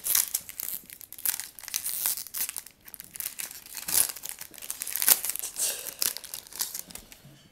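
Wrapper of a 2011 Topps Prime football card pack crinkling and tearing as it is pulled open, in a quick run of irregular crackles that dies away near the end.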